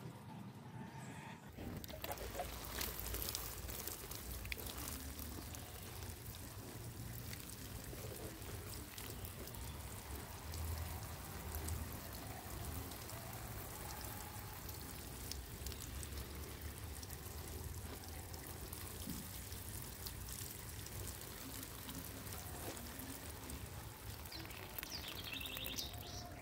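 Water sprinkling from a watering can's rose onto plant leaves and soil, a steady spatter of falling water that starts about a second and a half in.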